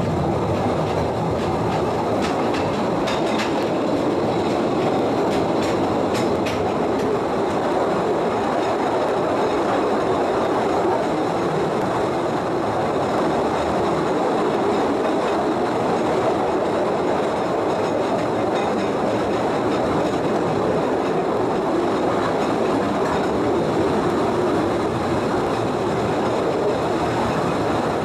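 Postojna Cave narrow-gauge tourist train running along its track, a steady rumble and clatter of wheels on the rails, with a few faint high ticks a few seconds in.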